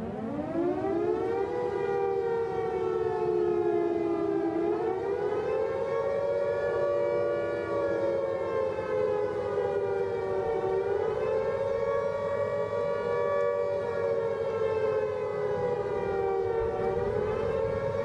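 Civil defense siren ending its wind-up with a rising pitch in the first second or two, then sounding a steady wail. Two close pitches sound together, and the pitch sways slowly up and down about every six seconds.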